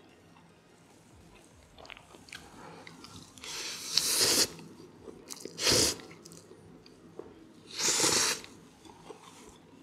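A person eating a stir-fried noodle dish: quiet chewing, broken by three loud breathy rushes of air, the first and last about a second long and a shorter one between them.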